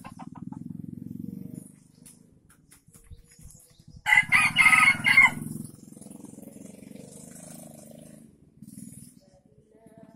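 A red junglefowl rooster crowing once, about four seconds in: a short, choppy crow of a little over a second. A faint low hum runs underneath at times.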